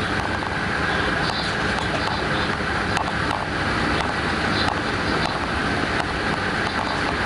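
Class 186 electric locomotive running along the line: a steady rumble and hiss of the train in motion, with a few sharp clicks.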